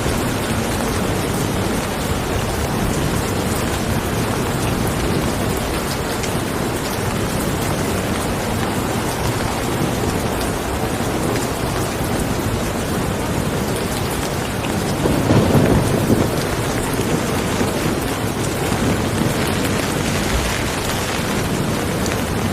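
Steady rain falling, with a low rumble of thunder swelling briefly about two-thirds of the way through.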